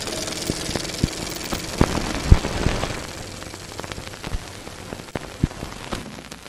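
Crackling static from a logo intro sound effect: a steady hiss with irregular clicks and pops that grows quieter toward the end.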